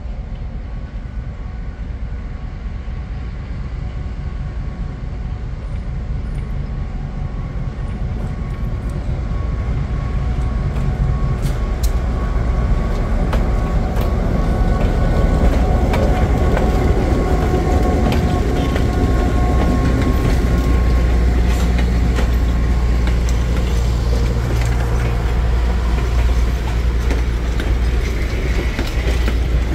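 C&O 5833, an EMD GP7 diesel locomotive, passing slowly with a train of passenger coaches. Its engine drone grows louder over the first half as it comes alongside. From about a third of the way in, the wheels click over the rail joints as the coaches roll by.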